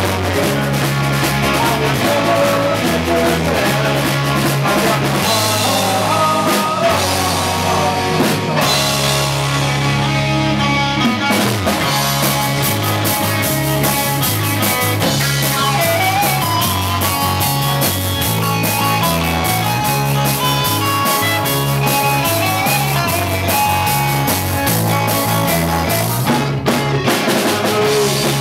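A live rock band plays loudly and steadily: a full drum kit with electric guitars over a moving bass line.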